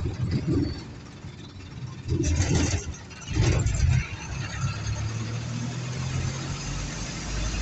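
Bus engine running with road noise, heard from inside the bus, broken by two short, louder noisy bursts about two and three and a half seconds in. From about four and a half seconds on the engine settles into a steady hum.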